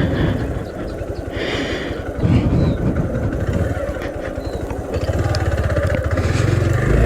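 Hero Xpulse 200T's single-cylinder four-stroke engine running under way, its exhaust pulses steady at first, then rising in pitch and getting louder near the end as the bike accelerates.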